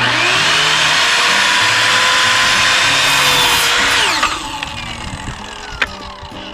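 Electric power saw switched on and spinning up, running steadily for about four seconds while ripping 2x4 lumber into stakes, then switched off and winding down with a falling pitch.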